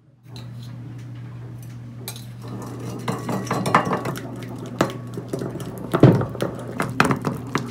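Metal spoon stirring egg yolk in a ceramic bowl, clinking and scraping against the bowl over a low steady hum. The clinks start about two and a half seconds in and are most frequent later, with the loudest knock near six seconds.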